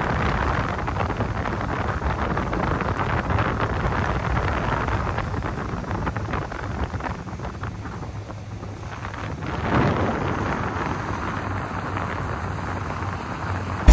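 Wind buffeting the microphone: a steady rushing noise that eases off a little and swells again about ten seconds in.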